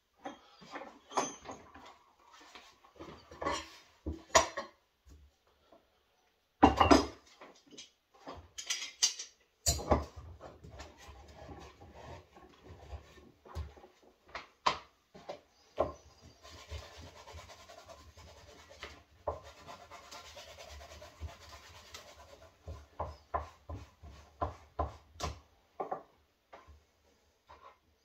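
Knocks, clicks and rubbing as equipment is handled and set up on a wooden shelf, including a bar clamp being fitted to the shelf edge. A steady rubbing noise runs for several seconds in the middle, among scattered sharp knocks.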